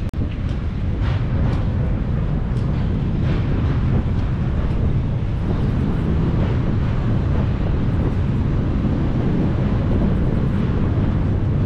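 Outdoor city ambience with a steady low rumble of wind buffeting the microphone.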